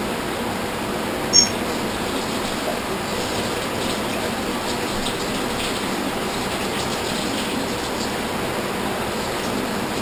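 Steady, even hiss. A short high-pitched blip comes about a second and a half in, and faint light ticks follow later.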